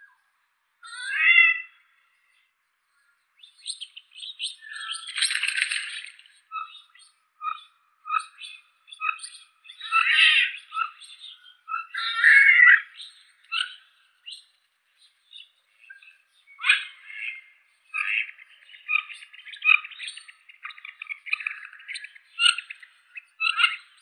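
Mandarin ducks calling: a long string of short, high squeaky calls and chirps, with several calls a second at times.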